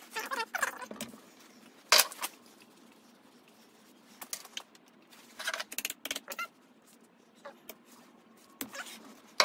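Metal hand tools clicking and scraping on a motorcycle engine's generator mounting screws: a few sharp clinks, with a quick run of ticks about six seconds in.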